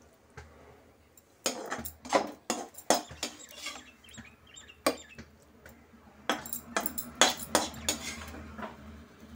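Metal spatula clinking and scraping against steel cookware in a run of irregular knocks, as cooked bottle gourd stir-fry is scooped from the kadai into a steel vessel.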